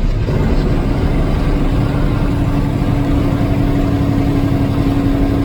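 Steady road and engine noise of a vehicle driving at speed, a low rumble with a steady droning hum that comes in about half a second in and grows stronger.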